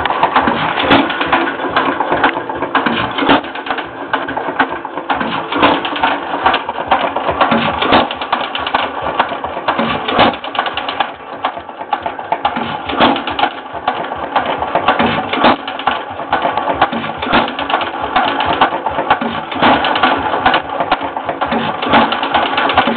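1914 Hercules 1½ hp hit-and-miss gas engine running with fresh shims fitted, a steady fast mechanical clatter with a stronger stroke every two to three seconds as it fires and coasts. It is newly rebuilt and not yet run in.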